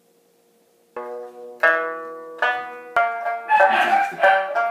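An Okinawan sanshin, a three-stringed banjo-like lute, plucked one note at a time: four notes that ring and fade, about two thirds of a second apart, starting about a second in. Over the last second the playing grows fuller and a voice joins in.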